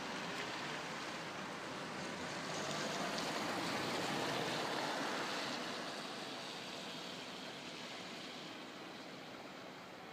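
Outdoor rushing noise with no siren tone, swelling over the first few seconds and then slowly fading.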